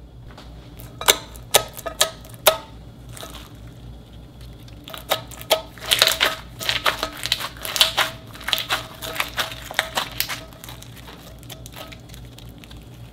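Foam-bead slime being squeezed and kneaded by hand: a few sharp pops and clicks, then a dense run of crunchy crackling as the beads and trapped air are pressed, thinning out near the end.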